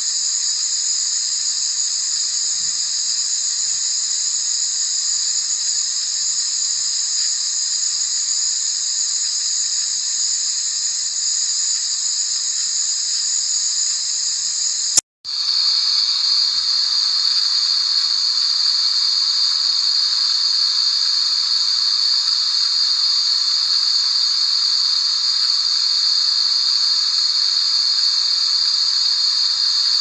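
Steady white-noise hiss, brightest in the high treble. About halfway through it cuts out with a click for a split second, then resumes slightly lower and fuller in tone.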